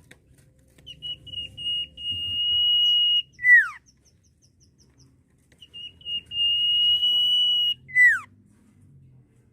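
Sirtu bird whistling its song twice: a few short high whistles run into one long steady whistle, which ends in a sharp note sliding down. Between the two phrases comes a faint run of quick high ticks.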